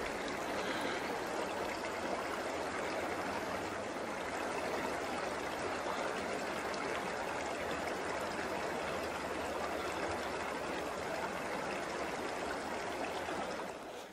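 Steady rushing noise, even and unbroken, like flowing water, cutting off suddenly at the end.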